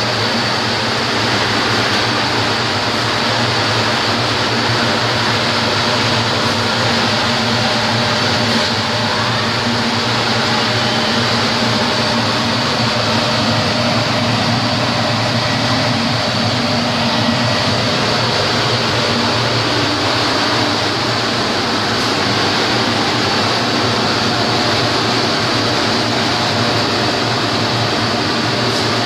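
E60-H textile comber running, its gear drive turning: a loud, steady mechanical hum and clatter with a constant high whine over it.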